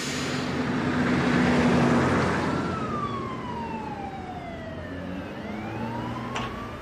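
A vehicle rushes past, then a police siren wails in the distance: one long slow fall in pitch, then a rise back up.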